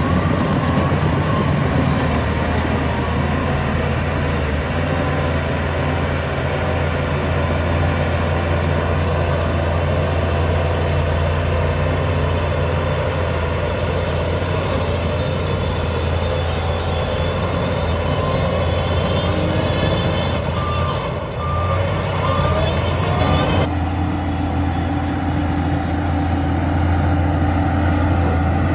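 A Shantui bulldozer's heavy diesel engine running steadily at working speed. About two-thirds of the way through, three short reverse-alarm beeps sound, and the engine note shifts right after.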